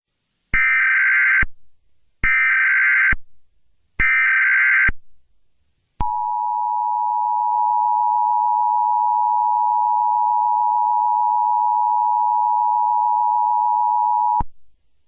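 Emergency Alert System SAME header: three short bursts of data tones about a second long, a second apart. These are followed by the EAS two-tone attention signal, a steady pair of tones held for about eight seconds that cuts off suddenly.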